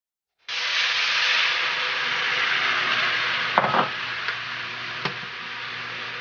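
Port wine sizzling and boiling hard in a hot stainless steel skillet, deglazing the pan over sautéed shallots: a loud hiss that sets in suddenly about half a second in and slowly eases. A few sharp clicks of the spatula against the pan come in the middle.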